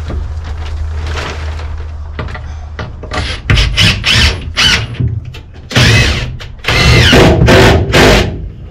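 Power drill running in a few short bursts, then longer runs, its whine rising and falling in pitch as it works into wood, over a low steady hum.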